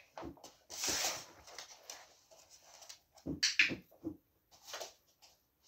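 A dog-training clicker clicking in quick pairs, once about three seconds in, marking the dog as it steps onto the foam block. A short scuffle of the dog's feet on the rug and mat comes about a second in.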